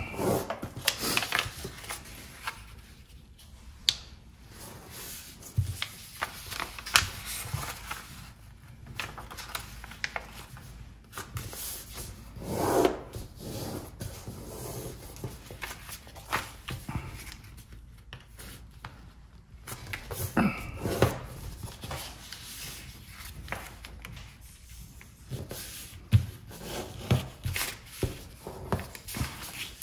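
A sheet of paper being folded by hand on a table: irregular rustling and sliding, with short sharp crackles as fingers press the folds into creases.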